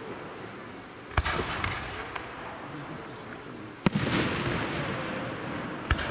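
Aerial firework shells bursting, three sharp bangs about two seconds apart, each followed by a lingering rumble and crackle.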